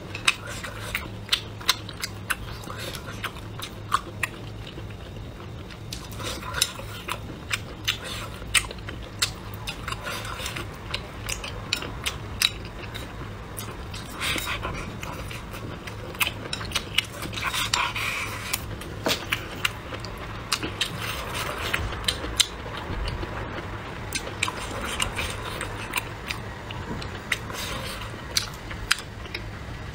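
Chopsticks clicking again and again against a bowl as rice and braised meat are scooped up and eaten, with softer chewing sounds in between. The clicks are sharp and irregular, coming every second or so.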